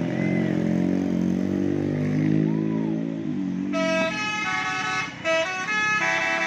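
A bus engine runs, and about four seconds in the bus's multi-tone telolet horn comes in, playing a tune of short notes that step up and down with brief breaks between them.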